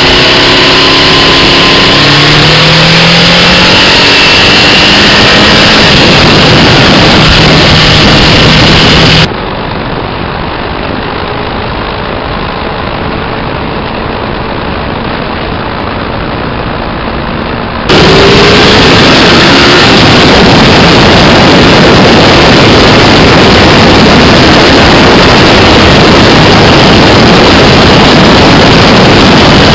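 Parallel-twin motorcycle engine being revved, its pitch rising and falling with the throttle over a loud, dense engine noise. About nine seconds in the sound drops abruptly to a quieter, duller stretch, then comes back loud with another rev near 18 seconds.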